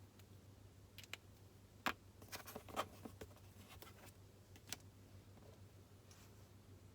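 Light clicks and taps of a pen and stationery handled on a desk, a scattered handful of short knocks, clustered about two to three seconds in, over a faint steady low hum.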